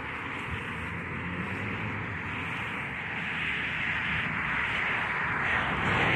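Road traffic: a steady noise of vehicles and their tyres on the road, growing gradually louder toward the end.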